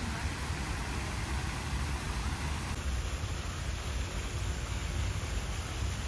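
Steady outdoor background noise: a low, flickering rumble under an even hiss, with no distinct events.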